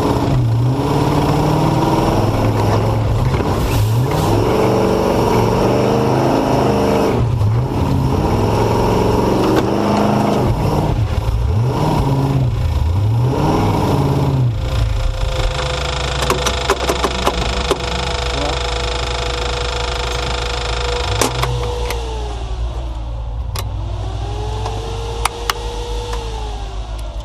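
A truck's engine revving up and down again and again as it labours in deep silt. About halfway through, the engine settles into a steady whine with scattered sharp clicks. Near the end the pitch drops and then swells and falls once more.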